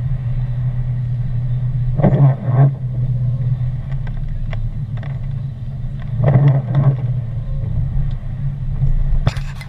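A car driving along a slushy road, its engine and tyre noise making a steady low drone inside the cabin. The drone swells twice, and there is a sharp knock near the end.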